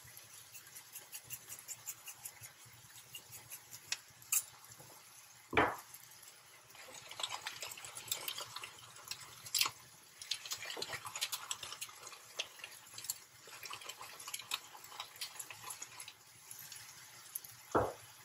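Seasoning shaken and ground over a skillet of ground pork: light scattered ticks from a salt shaker, then a long run of dense grinding clicks from a pepper grinder through the middle. Two dull knocks, one about five seconds in and another near the end.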